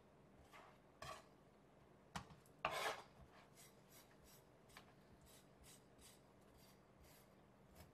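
Kitchen knife scraping along a Pacific saury and the plastic cutting board as the belly is slit open and the guts are scraped out. A few short soft scrapes come first, the loudest about three seconds in, then a run of short faint strokes, about two a second.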